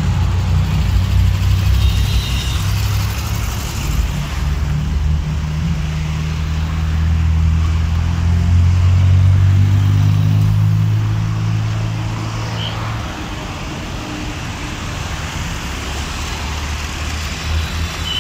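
Slow-moving road traffic: vehicle engines passing close by, a deep engine hum that swells to its loudest in the middle and then eases off.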